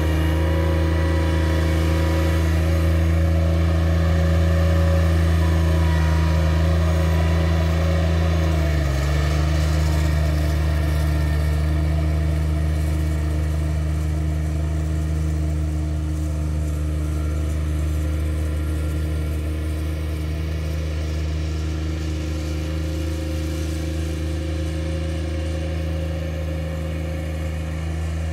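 Ride-on mower engine running steadily with a deep, even hum, dipping briefly in pitch about nine seconds in and then settling again. The sound fades a little as the mower drives away.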